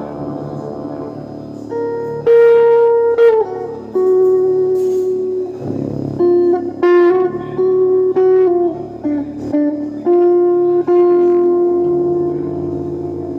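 Guitar playing a slow melody of long single notes, several of them bending or sliding down in pitch, over a held low chord.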